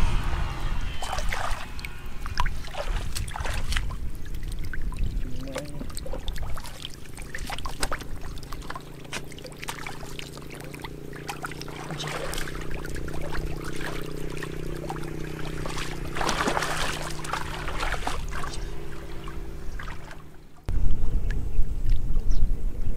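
Fish thrashing and splashing in shallow muddy water, with irregular wet slaps and splashes over a steady low hum. Near the end the sound jumps abruptly louder, with more splashing.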